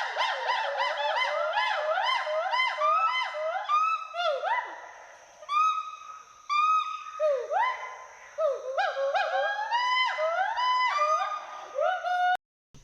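Western hoolock gibbons calling with rising whoops, repeated fast at about three a second, then slower and spaced out with short pauses. The calls cut off abruptly near the end.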